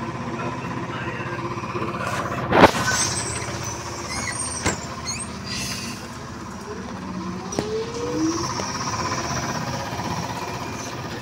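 BKM 321 trolleybus at a stop over a steady hum. About two and a half seconds in, a sharp loud clack comes with a hiss of air as the pneumatic doors close. Later there is another short hiss, and near the middle to end the electric traction drive whines up in pitch as it starts to pull away.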